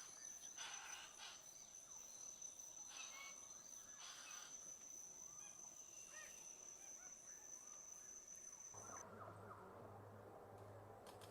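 Faint forest ambience with a steady high-pitched insect drone and a few short bird calls. About nine seconds in it cuts off abruptly to a different background with a low pulsing hum.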